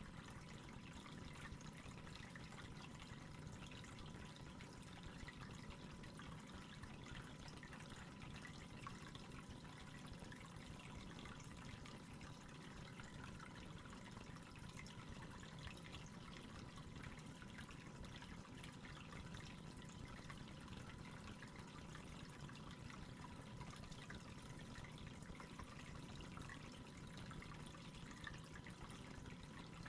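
Faint, steady trickle of water from the aquarium's filter stirring the tank surface, with a faint steady high tone beneath it.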